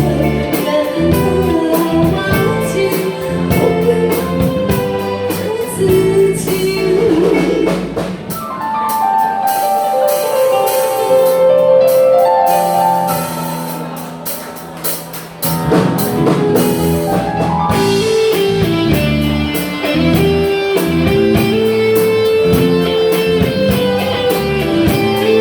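Pop song backing music with guitar and a drum beat. About eight seconds in the bass and drums drop out under a gliding melody that dips and rises again, and the full band comes back in about fifteen seconds in.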